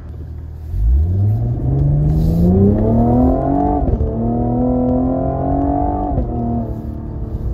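Cadillac CT5-V's twin-turbo V6 accelerating hard under automatic shifting. Its note climbs from under a second in, then drops at two upshifts, about four and six seconds in, each shift marked by a brief exhaust pop as back pressure is released.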